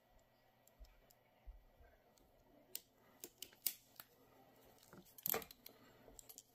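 Hand crimper for Anderson Powerpole contacts closing on a small metal contact over a 20-gauge wire: a few sharp clicks, then a louder crunch about five seconds in as the contact is crimped down.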